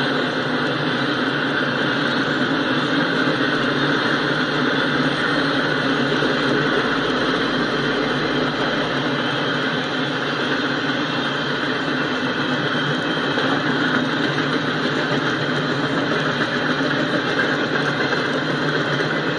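Double-stack container cars of a CSX intermodal freight train rolling past, a steady rumble of steel wheels on the rails.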